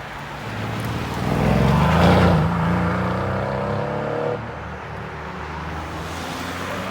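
Sports car engine accelerating close by, its pitch climbing and loudest about two seconds in, then cutting back sharply about four seconds in as the throttle is lifted, leaving a quieter engine running to the end.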